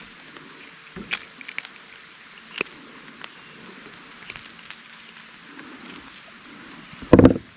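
Small sharp clicks and rattles of fishing tackle being handled as a hook is worked out of a small fish's mouth, scattered over the first few seconds. Near the end comes a single short, loud, low thump.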